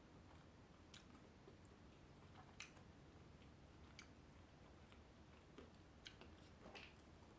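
Faint, close chewing of a soft, saucy mouthful of a KFC Famous Bowl with lips closed, with about five soft wet mouth clicks spaced a second or two apart.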